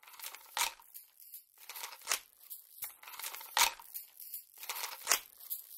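Faint crinkling and rustling, like paper or a foil bag being handled, with a sharper rustle about every second and a half.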